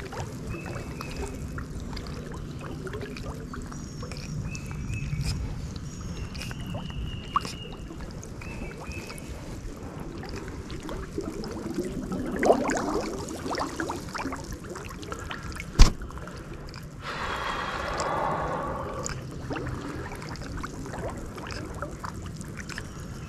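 Creek water sloshing and splashing around a person wading in it, swelling louder twice. A single sharp knock stands out about sixteen seconds in.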